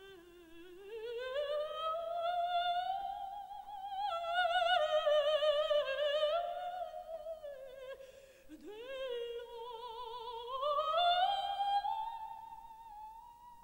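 Operatic coloratura soprano singing live with a wide vibrato. Her phrases climb in pitch, drop sharply about eight seconds in, then climb again to a high held note near the end.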